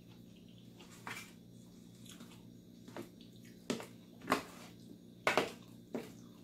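Close-up mukbang eating sounds: about half a dozen sharp, wet smacks and squelches of chewing and handling a mouthful of rice and sardines, the loudest a little past the middle and about a second later.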